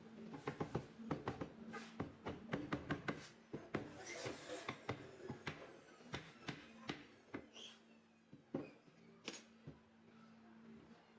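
Irregular light taps and knocks, coming thick and fast for the first few seconds and thinning out after that, over a steady low hum.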